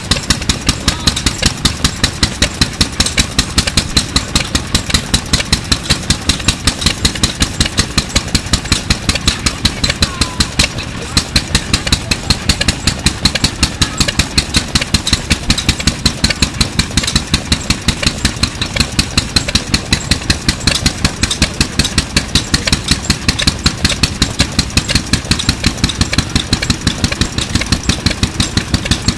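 1954 AKITU Type 2MB 3 hp oil and diesel-fuel stationary engine, a single-cylinder Japanese farm engine, running steadily with even, regular exhaust beats.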